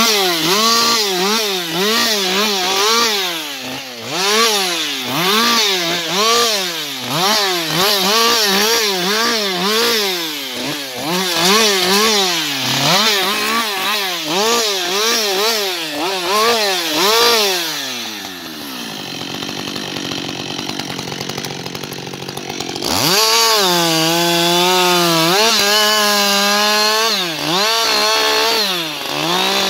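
Husqvarna 560 XP two-stroke chainsaw cutting through spruce logs, its engine speed rising and falling about once a second as it bites. About 18 seconds in the engine drops back to idle for several seconds, then revs sharply back up to full throttle for another cut.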